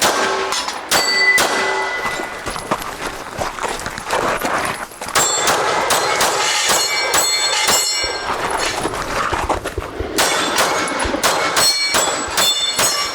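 Pistol shots fired in quick strings at steel targets, each hit ringing out as a metallic clang. The shooting comes in three clusters: in the first two seconds, a dense run from about five to eight seconds in, and another from about ten seconds on.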